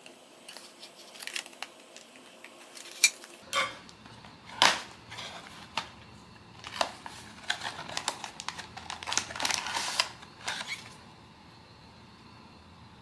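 Blind box packaging being handled: irregular crinkling and rustling of plastic and card, with a few sharp clicks and taps. The handling stops about two seconds before the end.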